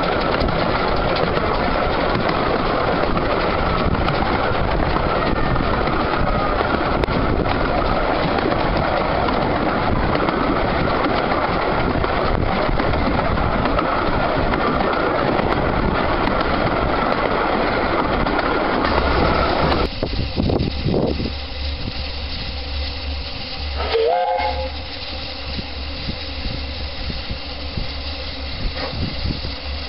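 Steady running noise of a train riding behind a 15-inch gauge steam tank locomotive, heard from the carriage. At a sudden change about two-thirds through it gives way to a quieter scene beside the Winson/Keef 2-6-4T No. 9 "Mark Timothy", where a short rising whistle note sounds once.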